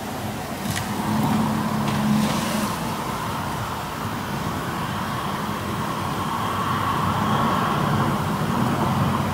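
Road traffic: a motor vehicle's engine running close by over a steady traffic hum, with a couple of brief high-pitched ticks about one and two seconds in.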